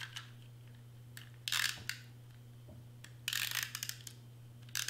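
Hand-held tape runner rolled across paper, laying adhesive tape with a ratcheting whir: two strokes of about half a second, a second or so apart, and a brief third near the end.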